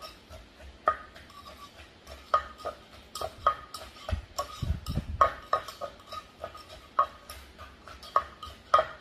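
Metal spoon clinking and scraping against a mortar while a wooden pestle works papaya salad (som tam) dressing. Sharp, irregular clinks come about twice a second, with a few heavier low pestle thuds around the middle.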